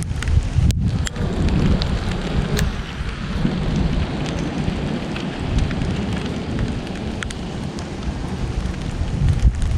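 Steady rain falling, with scattered sharp drops ticking on a nearby surface over a heavy low rumble.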